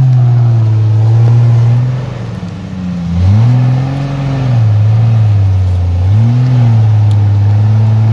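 Off-road Jeep Wrangler's engine revving under load in three surges, each held for a second or two before dropping back.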